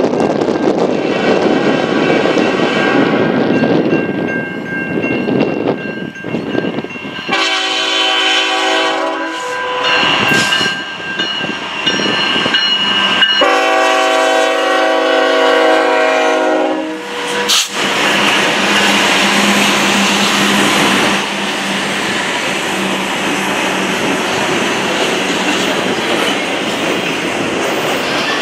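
Canadian National freight train's diesel locomotives sounding their air horn in two long blasts, each a chord of several tones, as they approach. The locomotives then pass close by with their engines running and the train's wheels rolling steadily over the rails.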